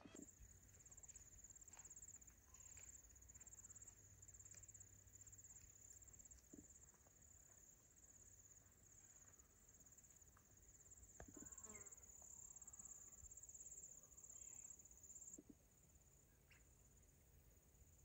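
Faint, high-pitched insect trill, a fast pulsing chirr that runs on steadily and stops suddenly about fifteen seconds in. A few faint clicks and chirps sound over it.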